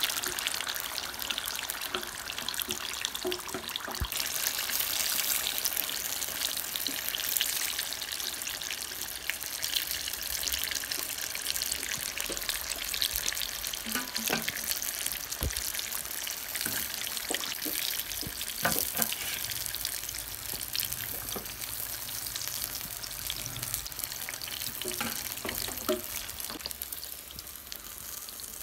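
Beef rolls deep-frying in hot oil in a wok-shaped pan, a steady bubbling sizzle, with a few sharp knocks of metal utensils against the pan. The sizzle eases slightly near the end.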